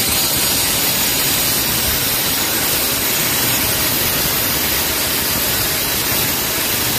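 Electric angle grinder running under load, its cutting disc grinding a 2-inch hole through the ceramic of a squat toilet pan, a steady unbroken grinding noise.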